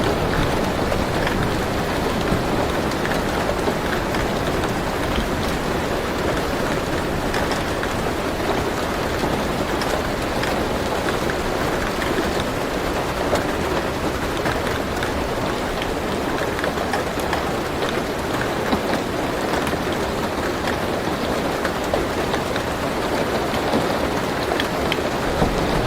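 Steady rain falling on a car roof, heard from inside the car, with scattered sharper drop hits standing out from the even hiss.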